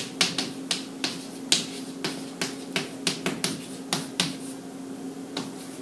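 Chalk tapping and scratching on a chalkboard as words are written: an irregular run of sharp ticks, about three or four a second, thinning out near the end, over a faint steady hum.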